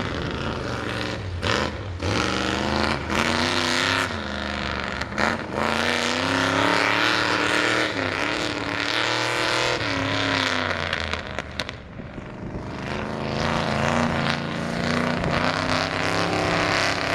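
A 1970s Ford mud truck's engine running through open exhaust pipes, its pitch rising and falling as the throttle is worked. It eases off and goes quieter about twelve seconds in, then builds again.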